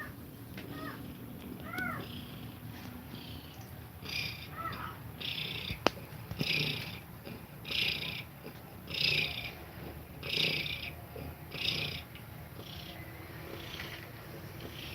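Nursing mother cat purring and breathing fast and heavily. Her breaths come as regular hissy puffs about every second and a quarter through the middle of the stretch. A few short, high kitten mews come before the breathing picks up, and there is one sharp click about six seconds in.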